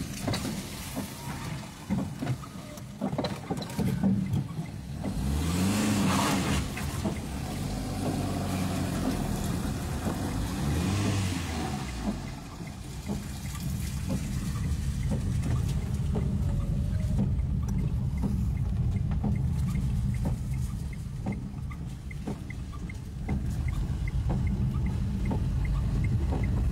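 Car engine running, heard from inside the cabin as the car is manoeuvred and turned around, its revs rising and falling twice, about five and ten seconds in. Rain patters on the car's body and windshield.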